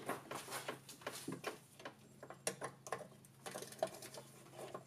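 Irregular light metallic clicks and ticks, several a second, of a 7/16 wrench working the nuts on an electric golf cart's forward/reverse switch.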